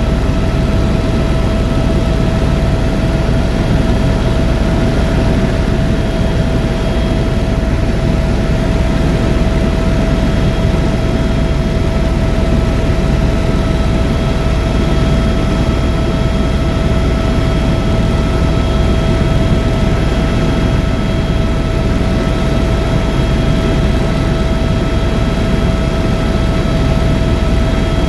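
Tour helicopter in flight: steady, unchanging engine and rotor noise with a constant whine over it.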